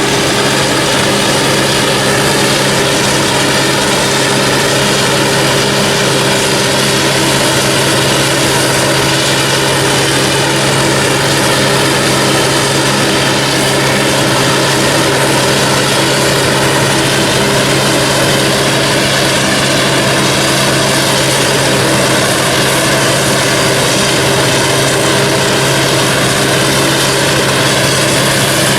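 Heavy diesel farm machinery harvesting maize, a self-propelled forage harvester working alongside a tractor and trailer, running steadily at a constant engine speed with a continuous rushing noise over the engine hum.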